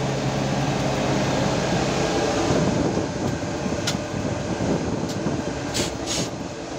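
Cab noise of a Montana Boxer 2000 self-propelled crop sprayer with hydrostatic 4x4 drive, driving across a field. The engine runs steadily, then turns rougher with rattling about two and a half seconds in, with a few sharp clicks in the second half.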